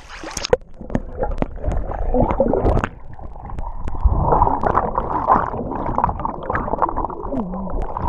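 Muffled underwater sloshing and bubbling, heard through a camera submerged in a creek as a person dives in and thrashes about, with scattered sharp knocks. The sound goes dull about half a second in, when the camera goes under.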